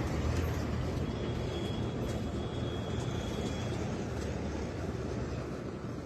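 A steady low mechanical rumble, like an engine or machine running, with a faint high whine for a couple of seconds about a second in.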